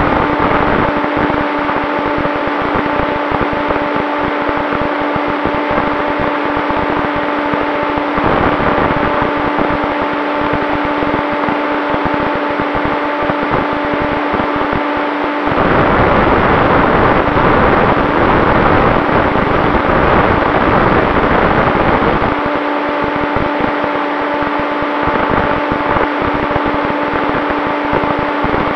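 Onboard sound of an RC plane's brushless motor (Turnigy XP 3536 1000 kV) and propeller running at a steady pitch, with wind rushing over the camera microphone. About halfway through, the motor tone drops out for several seconds under a louder rush of wind, then comes back.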